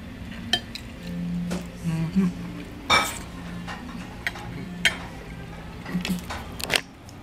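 Metal fork and spoon clinking and scraping against a ceramic plate of spaghetti while eating: a series of sharp, irregular clinks, the loudest about three seconds in.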